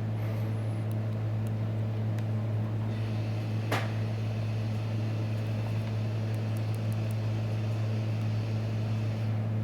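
Steady low hum, with a single short click about four seconds in.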